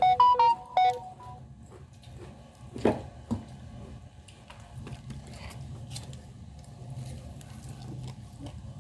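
A quick run of about six short electronic beeps at different pitches in the first second or so. After that come faint clicks and rustles of greasy grilled chicken being pulled apart by hand, over a steady low hum.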